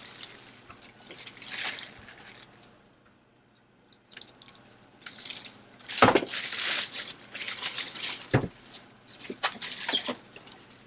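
Plastic bag rustling and crinkling as it is pulled off a sewing machine, in bursts, with a knock about six seconds in and another a little after eight.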